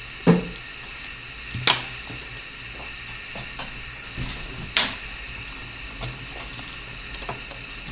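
Scissors cutting plastic canvas mesh, and the cut plastic pieces being handled: three sharp clicks, about a third of a second, just under two seconds and nearly five seconds in, among lighter ticks and taps.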